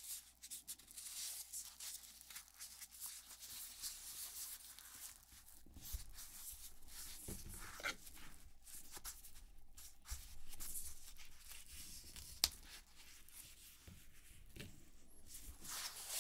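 Hands handling and opening product packaging: scratchy rustling with many soft taps and clicks, and one sharp click about twelve seconds in.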